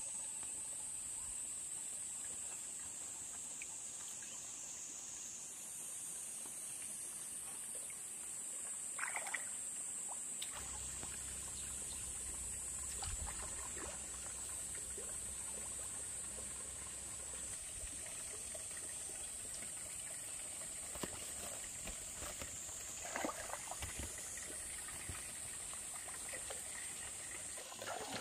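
A steady, high-pitched drone of forest insects, with water trickling and a few light knocks and rustles.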